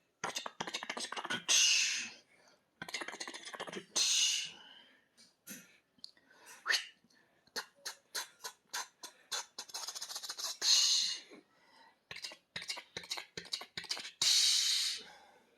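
Playful mouth noises: runs of rapid lip and tongue clicks and smacks, broken four times by a longer breathy hiss or blowing sound.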